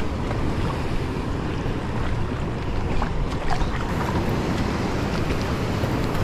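Wind buffeting the microphone over the steady rush of fast-flowing river water.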